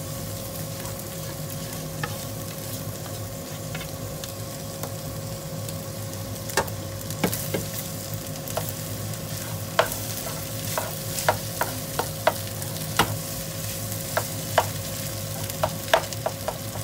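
Fried rice sizzling in a nonstick frying pan while a spatula stirs and turns it, scraping and clicking against the pan. The clicks come more often in the second half, over a steady sizzle with a faint steady hum underneath.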